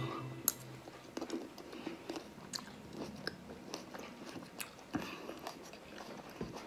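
Faint, irregular chewing of a child eating a cherry tomato, heard as scattered short clicks.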